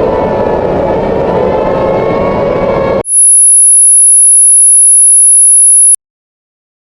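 A civil-defense-style tornado siren wails over a rushing storm noise. About three seconds in it cuts off abruptly, replaced by a loud, very high-pitched steady pure tone that lasts about three seconds and stops suddenly.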